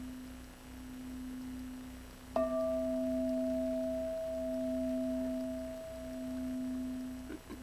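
Singing bowl ringing a steady low tone. It is struck again about two and a half seconds in, adding a brief higher ring, and the tone swells and fades in slow, wavering pulses.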